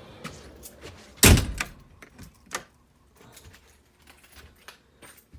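A door being opened, with one loud thunk about a second in, followed by several lighter clicks and knocks.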